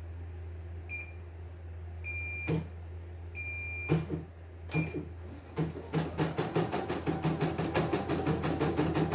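CNY E900 embroidery machine's control panel beeping at several key presses, two of the beeps held longer, as the design is stepped back a few stitches. A little over halfway through the machine starts stitching at its slow speed setting, the needle running in a fast, even rhythm.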